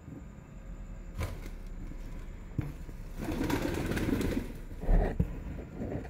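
Pigeons cooing and moving about on a concrete floor, with a few sharp taps and a louder bump about five seconds in.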